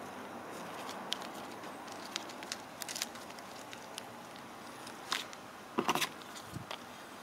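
Small plastic zip-lock bags of rough opal crinkling and clicking as they are handled and laid down on a plastic surface. Scattered light clicks give way to a louder crackle just past five seconds and a cluster of crackles around six seconds, over a steady hiss.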